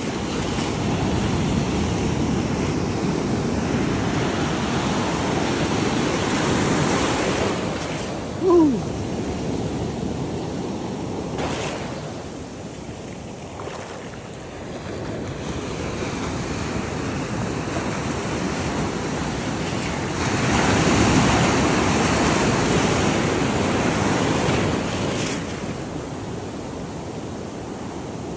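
Ocean surf washing up the beach, swelling and ebbing in long surges, with wind buffeting the microphone. A short squeak that falls in pitch cuts in about a third of the way in.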